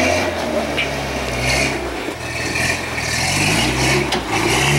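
Lifted rock-crawling pickup's engine revving in repeated surges, its pitch rising and falling several times, as the truck climbs a steep rock ledge under load.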